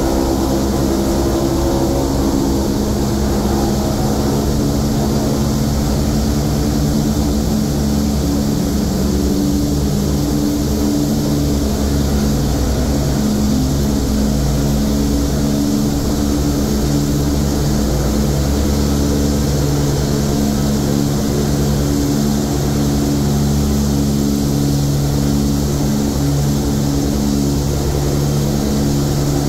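The B-29 Superfortress's four Wright R-3350 radial engines and propellers running at high power during the takeoff roll, heard from inside the glazed nose as a loud, steady drone with rumble.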